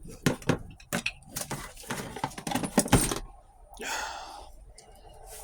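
Loose metal transmission parts clinking and clattering as they are handled, a quick string of sharp knocks, with a brief scraping rustle about four seconds in.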